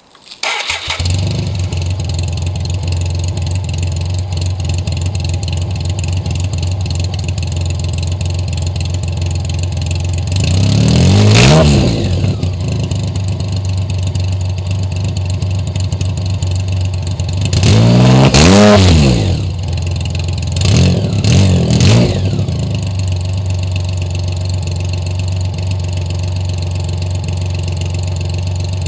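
BMW cafe racer motorcycle engine starting and settling into a steady idle. It is revved once, then again for longer, then blipped twice quickly, dropping back to idle each time.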